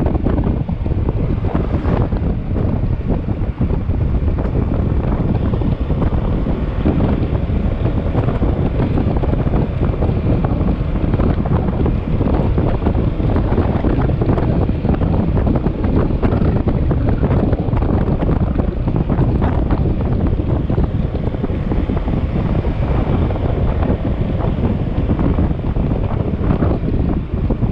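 Wind rushing and buffeting over the microphone of a moving motorcycle: a loud, steady, rumbling rush.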